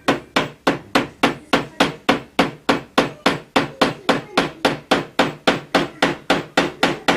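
A hammer striking wood in a steady run of quick, even blows, a little over three a second.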